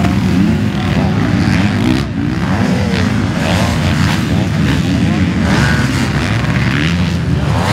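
Motocross race bikes revving hard as riders launch over a big jump, one after another. The engine pitch rises and falls with each bike.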